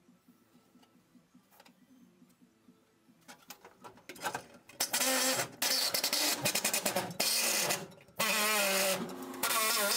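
Pneumatic die grinder grinding on a car's steel floor pan, in several long bursts beginning about four seconds in, its pitch wavering.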